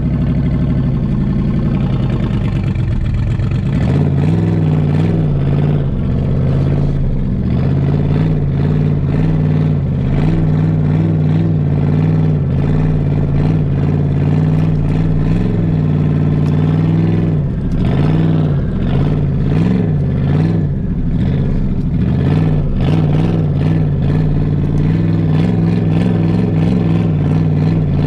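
Turbocharged Hemi V8 of a street truck, heard from inside the cab while driving, running at low revs with a steady hum. Engine speed wavers in small rises and dips, most of them about two-thirds of the way through.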